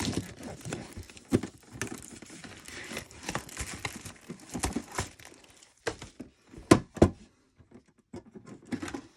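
Metal lunchbox tin being opened and its contents handled: a run of knocks, clicks and rattles with rustling packaging, and two sharp clicks close together about two-thirds of the way through.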